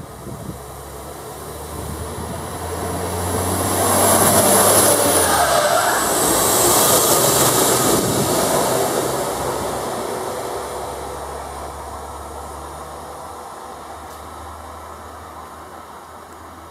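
Regional multiple unit 222M-001 passing close by and pulling away. It grows loud to a peak about four to eight seconds in, with a high whine that drops in pitch as it passes and a steady low engine hum, then fades into the distance.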